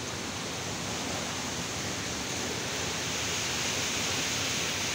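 Steady rush of flowing water from a small river, growing a little louder toward the end.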